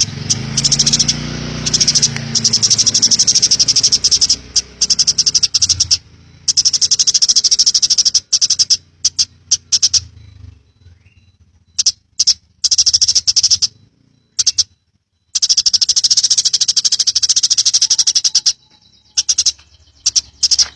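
Eurasian tree sparrow chirping in long, very fast runs of high, evenly repeated notes, broken off by several short pauses. A low rumble sits under the first couple of seconds.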